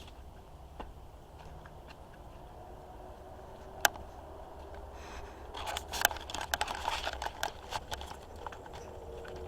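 Crackling and crunching noises over a low rumble: a single sharp click about four seconds in, then a dense run of crackles for two or three seconds.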